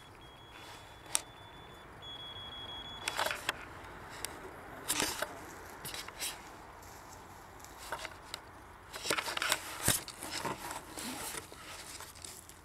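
A handheld ferret locator receiver gives a steady high electronic tone, broken briefly a few times, which signals a ferret's collar beneath it. About three seconds in the tone stops, and rustling and crunching footsteps through frosty brambles and undergrowth follow, with sharp handling knocks.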